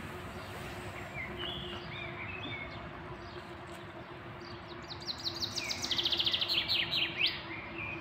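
Songbirds singing: a few short chirps, then a fast, descending trill of rapid notes over the last few seconds, the loudest sound. A faint steady low hum lies underneath.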